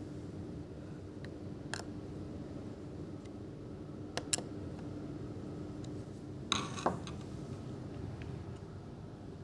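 A few sparse clicks from a laptop in use, with a short clatter of several clicks about six and a half seconds in, over a steady low hum with a faint held tone.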